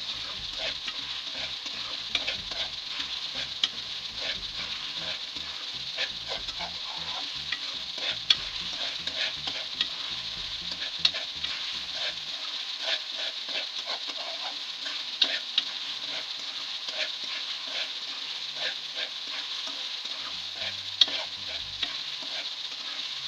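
Chicken in masala sizzling in a metal pan while a spatula stirs and scrapes it, with occasional sharp clinks of the spatula against the pan. This is the bhuna stage: the masala frying down, with spoonfuls of water added so it does not stick to the bottom.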